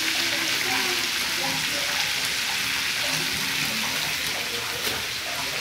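Potatoes and chickpeas sizzling steadily as they fry in oil in a pan.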